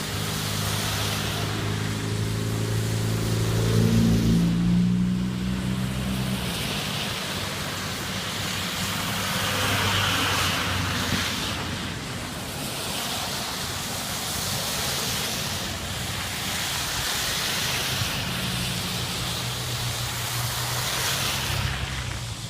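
Wind gusting across the microphone in a winter storm, rising and falling in waves. A vehicle engine hums through the first few seconds, drops in pitch and fades out about six seconds in, and a fainter engine hum returns near the end.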